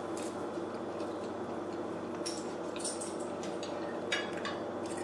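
A fork tapping and scraping against a plate of pasta: a few scattered light clicks over a steady background hiss.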